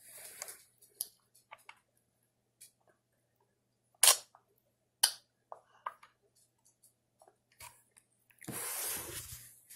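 Toddler sipping a smoothie from a plastic cup: scattered small mouth clicks and smacks, two sharper clicks about four and five seconds in, and a noisy slurp lasting about a second near the end.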